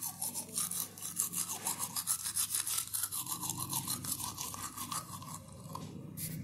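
Manual toothbrush scrubbing teeth in quick, rapid back-and-forth strokes that stop near the end.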